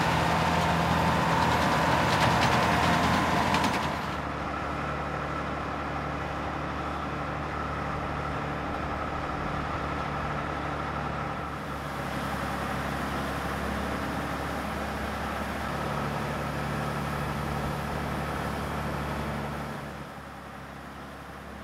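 New Holland 8050 combine harvester's six-cylinder engine running steadily under harvesting load, with a whine. It is louder for about the first four seconds, then drops suddenly to a quieter steady drone, and falls off again near the end.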